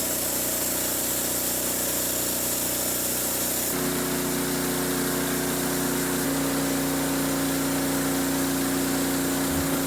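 Portable sawmill running: a steady mechanical hum of engine and saw with a hiss above it. Its held tones change abruptly a little under four seconds in.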